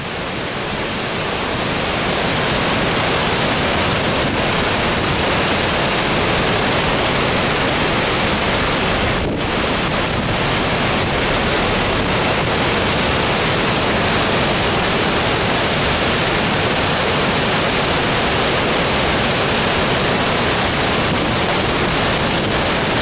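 Water rushing out of a dam's spillway in huge jets: a loud, steady roar of falling and spraying water, with wind buffeting the microphone.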